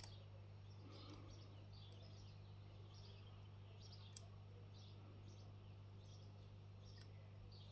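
Near silence: a steady low hum, with faint short high chirps scattered throughout and three tiny clicks.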